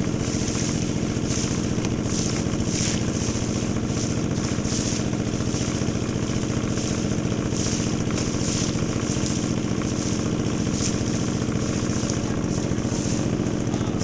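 Motorboat engine running steadily at a constant speed, with a steady hiss over it.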